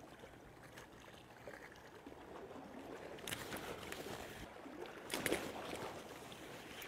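Faint rushing noise of wind and water on a seashore, swelling louder briefly about three seconds in and again, loudest, about five seconds in.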